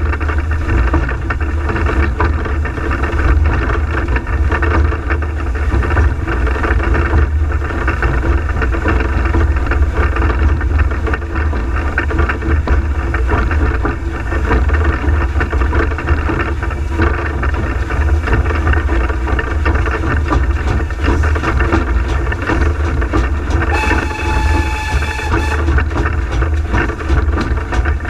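Peckett & Sons saddle tank locomotive Ashington No.5 running, heard from its footplate: a loud, steady rumble of the engine and wheels on the rails. A short high tone sounds about three-quarters of the way through.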